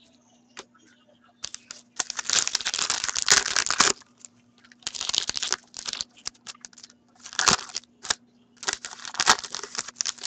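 Foil hockey card pack wrappers being torn open and crinkled in the hands, in bursts: a long, loud tear and crinkle about two seconds in, then shorter crinkles over the following seconds.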